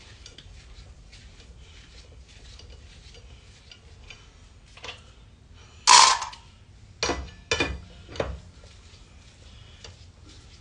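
A four-way lug wrench turning loosened lug nuts off a truck wheel with light metal ticking. About six seconds in comes a loud ringing metal clank, then three lighter clanks of wrench and lug nuts.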